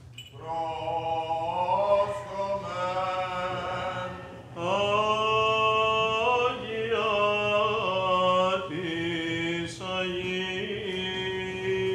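Byzantine chant in a Greek Orthodox liturgy: men's voices sing a slow, ornamented melody in long held notes that slide between pitches, over a steady low drone.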